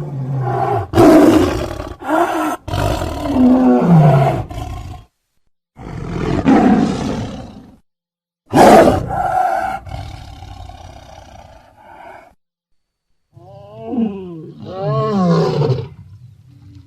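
Sound-effect roars and snarls made for a saber-toothed cat (Smilodon): a string of deep big-cat roars separated by short pauses. The loudest starts sharply about halfway through and trails off into a growl, and snarls falling in pitch come near the end.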